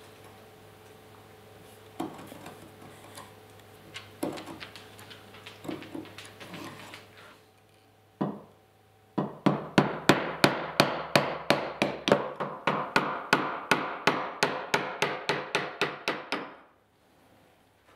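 A marking knife scratching along a steel square into a wooden rail, with a few light knocks. Then a chisel is driven into a mortise with one blow and then a quick run of steady hammer blows, about three or four a second, which stop about a second before the end.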